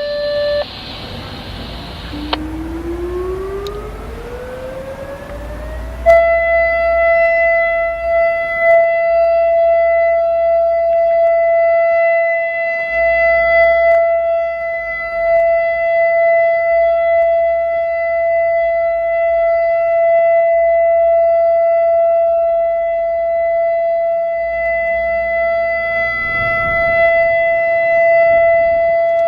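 ASC E-Class EC4 outdoor warning siren during a test. An earlier tone cuts off about half a second in, then a low tone rises steadily in pitch for about four seconds. About six seconds in it jumps sharply louder into a steady high wail that swells and fades a little for the rest of the time.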